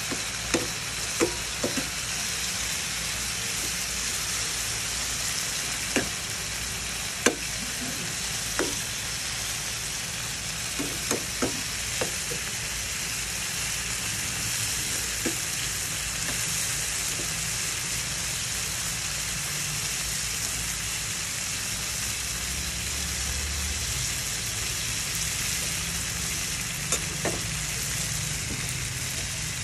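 Whole shrimp and garlic frying in a nonstick wok with a steady sizzle. Sharp clicks and scrapes of a slotted metal spatula against the pan come mostly in the first half, with a couple more near the end.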